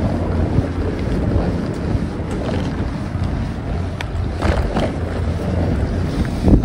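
Wind buffeting the microphone of a camera riding along on a bicycle, a steady low rumble of wind and tyres on the footpath. A few brief knocks and rattles break through, the sharpest near the end.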